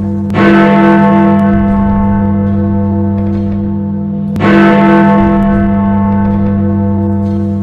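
Big Ben, the Great Bell of Westminster, striking the hour: two heavy strokes about four seconds apart, each ringing on long, the countdown strokes of midnight.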